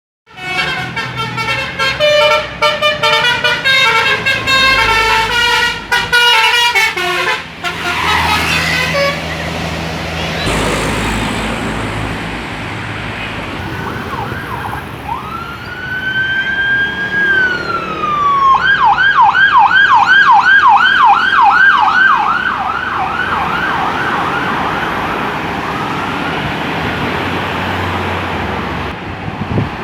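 Indonesian bus telolet horns. First comes a quick, many-note melodic horn tune for about seven seconds, then the noise of a bus going past. Then a siren-style horn rises, holds and falls, and breaks into a rapid warble of about four to five cycles a second for some five seconds.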